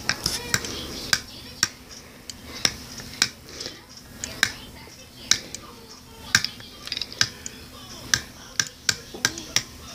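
Irregular plastic clicks and taps from a toy Thomas the Tank Engine being picked up and handled close to the microphone, coming faster near the end.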